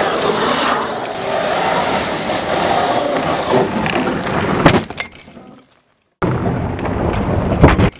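Large-scale electric RC rally car running hard on dry dirt: a steady motor and steel-gear whine with tyre scrabble, broken by a sharp knock about four and a half seconds in. After a short silent gap the running sound starts again suddenly and another sharp knock comes near the end.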